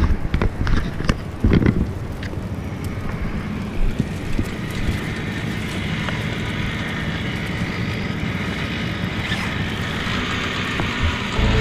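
Nylon gear bag and winter jacket being handled, rustling, with several clicks and knocks in the first two seconds, over a steady background rumble.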